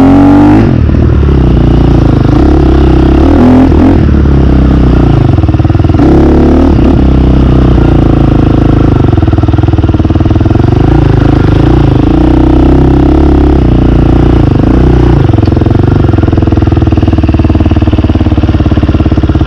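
KTM dirt bike engine running continuously while riding a trail, its pitch rising and falling with the throttle; short revs near the start and again about 3.5 and 6.5 seconds in.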